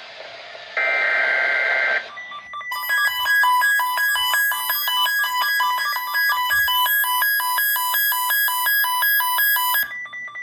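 The last burst of an Emergency Alert System SAME digital header, a harsh data screech of about a second. It is followed by an electronic alert tone: two shrill, buzzy tones alternating about twice a second for some seven seconds, then it cuts off. Together they mark the start of a broadcast weather alert, here a severe thunderstorm watch.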